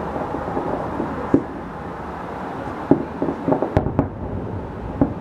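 Fireworks salute going off: a scattering of sharp bangs and cracks over steady background noise, with a quick cluster of them a little past three seconds in, the sharpest two close together near four seconds.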